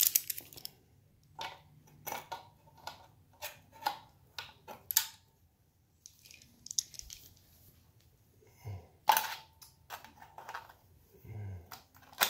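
Scattered clicks and clinks of a locking pliers (Vise-Grip) and a metal forming strip being handled and adjusted, with one louder click about nine seconds in.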